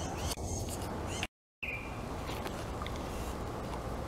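Birds chirping in the background over a steady low outdoor rumble, with a few faint clicks from a spoon stirring thick cookie dough in a bowl. The sound drops out completely for a moment about a second in.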